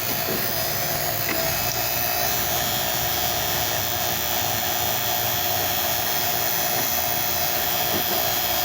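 Refrigeration vacuum pump running steadily, evacuating the air-conditioner system, a constant motor hum with a fixed whine.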